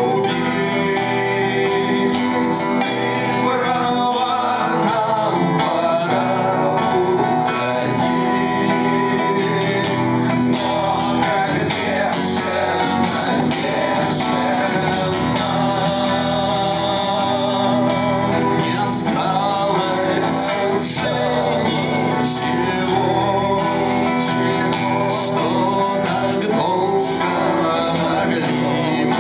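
Live acoustic song: two acoustic guitars strummed and picked together under a male singing voice, played at a steady level without a break.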